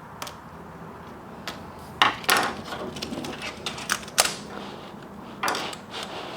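Irregular clicks and clatter of small hard parts and tools being handled and set down on a workbench, with a few sharp clicks and two louder bouts of scraping clatter.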